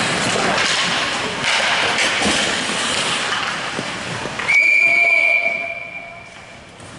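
Rink and spectator noise during play, then, about four and a half seconds in, a sudden loud, steady whistle blast lasting about two seconds that fades away: a referee's whistle stopping play after a scramble at the net.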